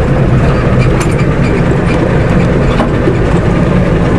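Ford F-250 diesel engine running steadily with an even, low rumble.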